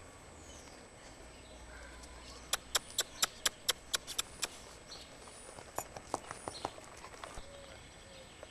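A puppy's claws clicking on concrete as it walks: a quick, even run of about ten sharp clicks, then a looser, fainter run a second later.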